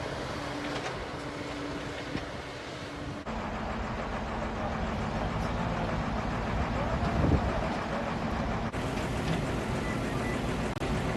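A motor vehicle's engine running steadily under a general outdoor din. The sound changes abruptly twice, about three seconds in and again near the end.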